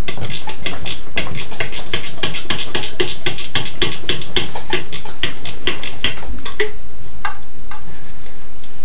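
Quick run of metallic clicks, several a second, from a ratcheting wrench turning a nut off a small engine. The clicks thin out to a few single ones in the last two seconds.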